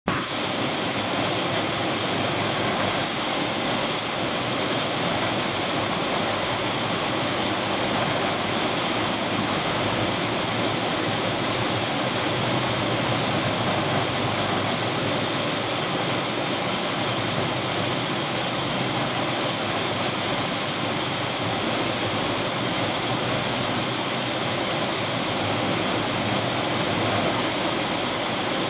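Steady rushing noise of tropical-storm wind and a rough, whitecapped sea, unbroken and even, with no distinct engine or other events standing out.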